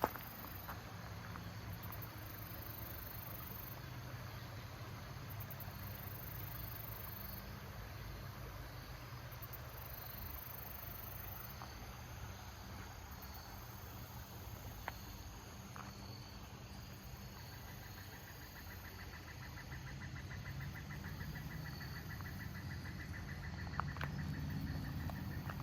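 Crickets and other insects chirping at dusk: a steady high chirping, joined about two-thirds of the way in by a second, rapid pulsing trill, over a low rumble.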